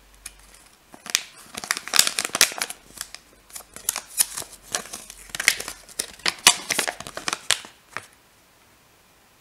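Thin folded paper leaflet crinkling and rustling as it is unfolded by hand, in quick crackly bursts that stop near the end.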